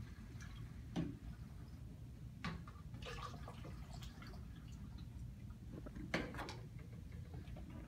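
Liquid poured from a plastic bottle through a funnel into a plastic spray bottle, with a few knocks of the bottles and funnel being handled, the loudest about six seconds in.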